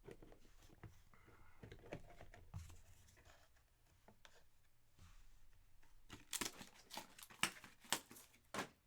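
Card box packaging and plastic being handled: soft rustling at first, then a run of sharp crinkling and tearing snaps in the last three seconds.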